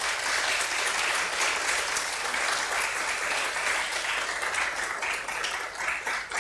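Audience applauding, a dense, steady clatter of many hands clapping that starts suddenly and begins to thin into separate claps near the end.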